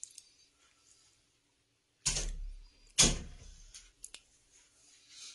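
Two loud dull thumps about a second apart, each trailing off in a brief rustle, followed by a couple of faint sharp clicks.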